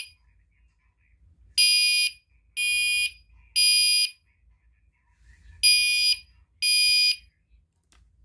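Fire alarm horn sounding the three-beep temporal evacuation pattern: three half-second beeps about a second apart, a pause, then two more beeps before it stops.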